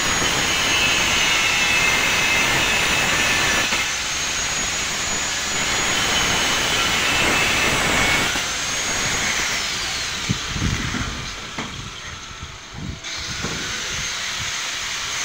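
Angle grinder grinding steel, a loud steady hiss with a high whine, winding down about nine seconds in; a few knocks follow.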